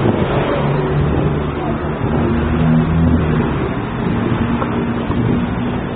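Street traffic noise: a road vehicle's engine running amid a continuous rumble, with a few steady low hums.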